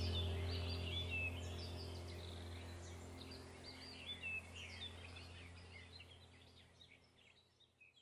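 Many small birds chirping and trilling over a steady low drone, the whole sound fading out gradually.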